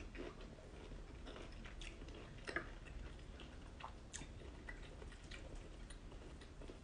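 Faint close-up eating sounds: chewing, lip smacks and small irregular clicks as a person eats soft food with her fingers, with one sharper click about two and a half seconds in.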